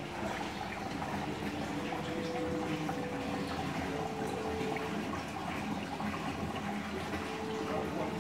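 Water flowing and splashing steadily into a model lift lock's chamber as the water level equalises across the closed brass gates.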